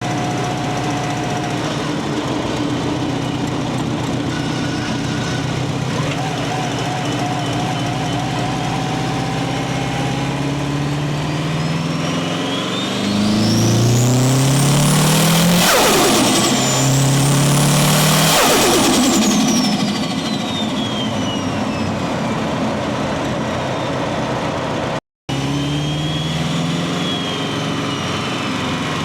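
Subaru WRX's turbocharged flat-four engine running, with revs climbing in two surges about halfway through, each with a high turbo whine that rises and then drops away. The sound breaks off briefly near the end and the engine carries on running.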